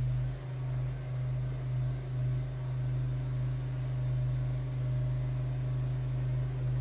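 A steady, low mechanical hum.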